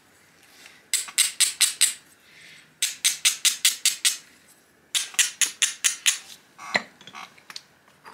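Basalt flake being knapped toward a projectile point: three quick runs of six or seven sharp, light clicking taps each, with a few single taps near the end.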